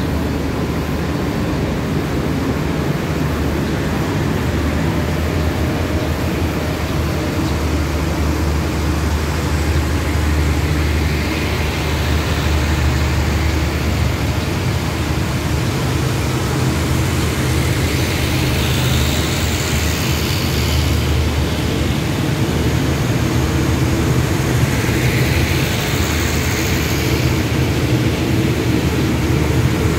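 Diesel passenger train moving slowly alongside the platform: a steady low engine drone, with hissing wheel-and-rail noise swelling up a few times.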